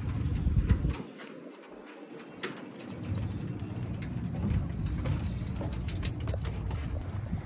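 Irregular sharp clicks and steps on a metal-grate gangway as a dog and a person walk down it, over a low rumble that drops away about a second in and returns about three seconds in.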